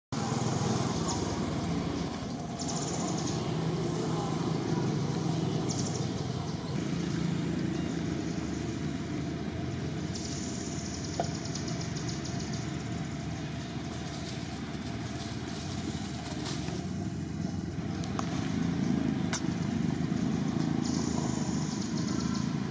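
Outdoor background of a steady engine rumble from passing traffic, with a high buzzing that starts and stops four times.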